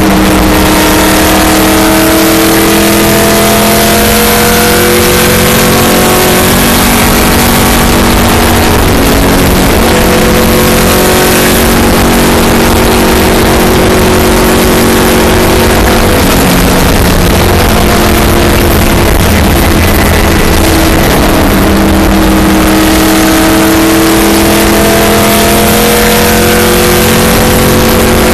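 Stock car's V8 engine at full speed, heard loud inside the cabin with road and wind roar. The engine note climbs slowly over the first few seconds, holds steady, then climbs again over the last several seconds.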